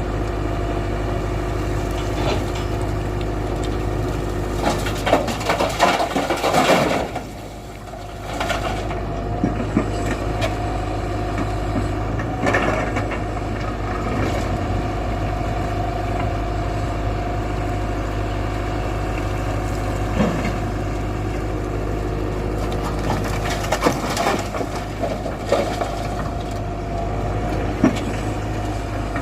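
Tata Hitachi 120 excavator's diesel engine running steadily, with intermittent knocks and scraping bursts over it and a brief drop in engine sound about seven seconds in.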